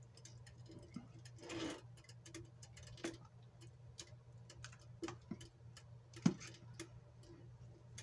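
Pot of quinoa cooking on the stove: faint, irregular small pops and ticks over a steady low hum, with one louder pop a little after six seconds in.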